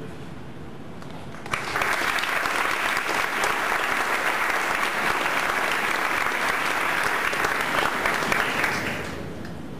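Audience applauding, starting suddenly about a second and a half in and dying away near the end.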